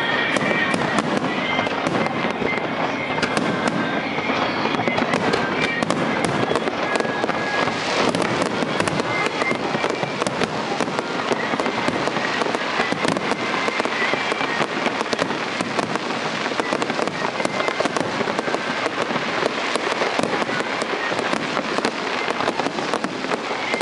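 Aerial fireworks display: many shells bursting in quick succession, a dense, continuous crackle of bangs with no pause.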